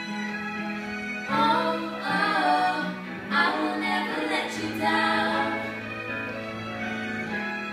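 A group of five female singers singing a slow song in close harmony, with no instruments seen, over a low note held steadily underneath; the upper voices swell into louder phrases several times.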